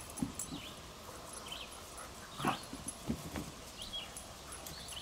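A dog playing with a ball gives a couple of short yips, the loudest about halfway through, over faint high chirps in the background.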